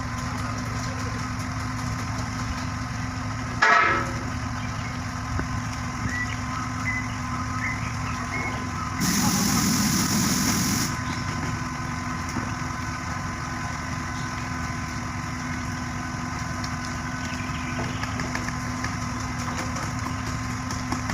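Heavy truck engine running steadily at idle. About four seconds in there is a short, loud sound, and from about nine seconds a hiss-like rush lasts about two seconds.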